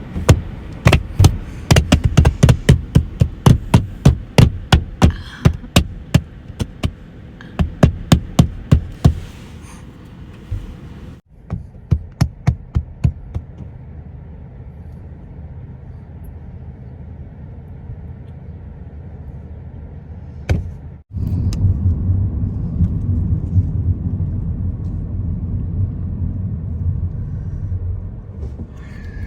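Runs of sharp knocks, about three a second, over the low rumble of a car's cabin. The sound drops out for a moment twice, and for the last third there is only the cabin rumble, louder and steady.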